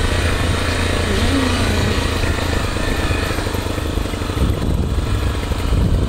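Motorcycle engine running while riding down a dirt track, with steady low wind rumble on the phone's microphone.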